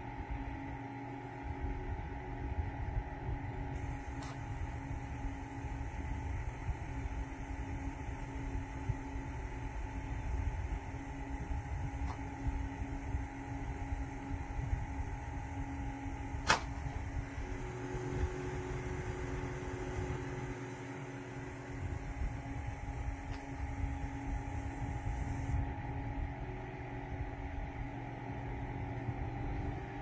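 Steady mechanical hum of a small desktop evaporative air cooler and its fan. One sharp click about halfway through, from a button on its control panel being pressed, and a further steady tone joins a second or so later.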